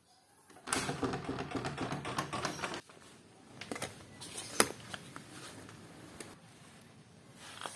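Rattling and clicking of wooden double doors with brass handles being unlatched and pulled open, dense for about two seconds. After that come quieter scattered clicks and knocks as a bicycle is handled, with one sharp click a little under five seconds in.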